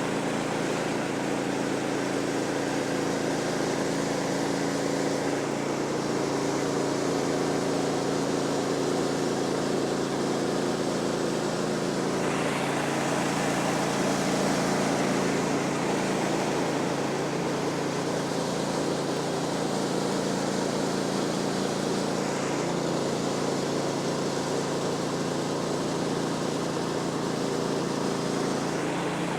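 Woodland Mills HM126 band sawmill running steadily, its engine holding a constant note while the band blade cuts through a post oak log; the rushing sound of the cut swells and eases a few times.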